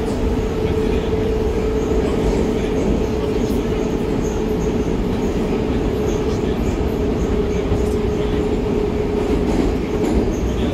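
Moscow Metro train running at speed through a tunnel, heard inside the carriage: a steady rumble of wheels on rails with a constant mid-pitched hum.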